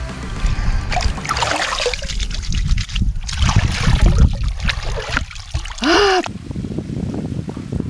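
Shallow river water splashing and trickling at the bank as a fish is let go by hand, with a brief loud sliding call about six seconds in.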